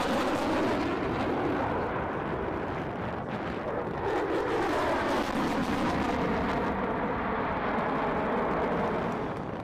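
F-35A Lightning II's single Pratt & Whitney F135 turbofan, loud jet noise from the fighter flying overhead. Its tone sweeps up and down as it passes, easing off slightly near the end.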